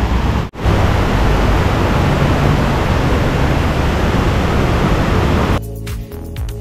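Loud steady rushing noise, heaviest at the low end, typical of wind buffeting a handheld camera's microphone while walking. It breaks off for an instant about half a second in. Background music with a beat takes over near the end.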